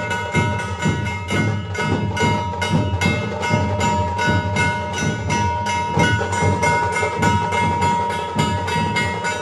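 Music played through a DJ sound system at a sound competition: a steady, evenly repeating heavy drum beat under held synth tones.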